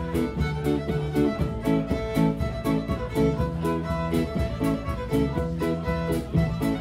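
Live band playing an instrumental tune led by a bowed fiddle melody, backed by electric guitars and a drum kit keeping a quick, steady cymbal beat.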